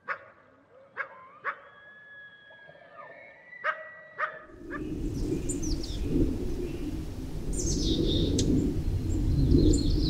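Coyotes howling and yipping: several drawn-out howls overlap, broken by sharp yips. About four and a half seconds in, this gives way to a steady rushing noise that grows louder, with high bird chirps over it.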